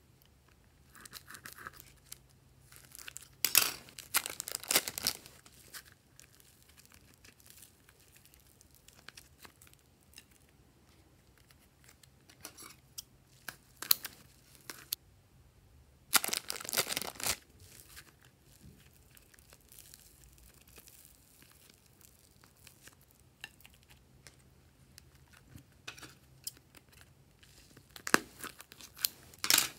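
Scissors snipping through thin plastic packets of soft clay, and the plastic crinkling and tearing as it is cut and pulled open, in scattered bursts with quiet gaps between.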